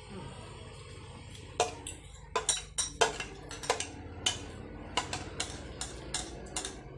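Forks and chopsticks clinking and scraping on plates as the last of the noodles is scooped up. The irregular sharp clinks start about a second and a half in, over a low steady hum.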